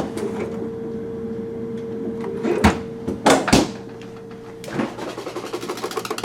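2022 GE top-freezer refrigerator's compressor running with a steady hum, cycled on moments earlier. A few loud knocks or thumps come about two and a half and three and a half seconds in, and a rapid, even ticking starts near the end.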